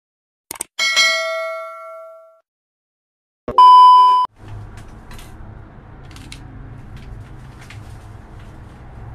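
Mouse-click sound effect followed by a ringing bell 'ding' that fades over about a second and a half: a subscribe-button animation sound. Then the loudest sound, a steady test-card beep tone lasting under a second, which cuts off suddenly and gives way to a low steady hum of room noise.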